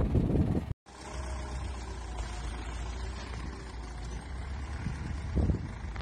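Zetor tractor's diesel engine running at a steady speed. Under a second in the sound cuts out briefly and comes back as a different, steadier recording, with a short swell near the end.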